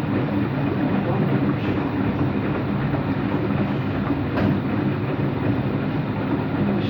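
Empty washing machine spinning, running loud and steady with a deep rumble from worn bearings. The owner suspects the drum bearings, the motor bearings, or both.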